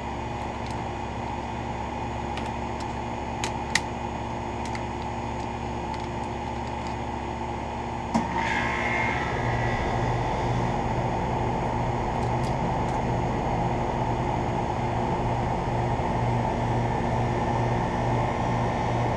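Outdoor central air conditioner condensers: a York unit running with a steady hum, a couple of clicks about three and a half seconds in, then about eight seconds in a click as a second unit, a Guardian, starts up and the hum grows louder with a low pulsing throb.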